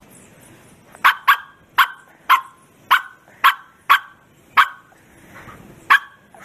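Bearded collie barking: nine short, sharp barks, most about half a second apart, with a pause before the last one near the end.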